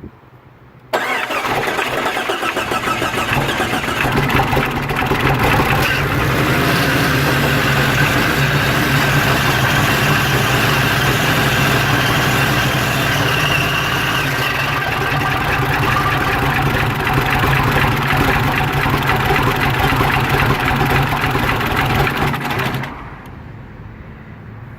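Jeep Cherokee engine catching about a second in and idling roughly for about twenty seconds, then cutting out near the end: the stall after a short run that goes with its rough-idle fault.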